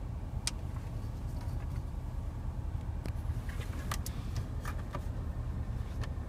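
A few faint plastic clicks and taps from the pop-out dashboard cup holders being handled and pushed shut, over a low steady rumble in the car's cabin.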